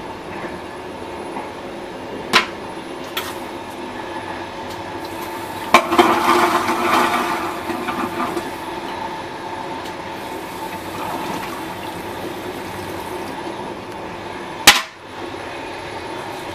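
Original 1990-era train toilet flushing: a sharp start about six seconds in, then a rush of water and air for about two seconds, over the steady hum of the moving train. A few light clicks come before it and one loud knock near the end.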